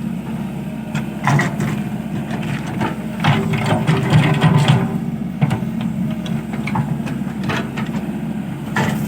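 Excavator's diesel engine running steadily, with irregular knocks and clanks of the machine at work, a cluster of them a few seconds in.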